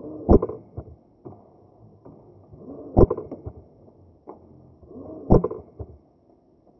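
Airsoft rifle fired three times, about two and a half seconds apart, each shot a sharp snap, with lighter clicks and handling rustle between the shots.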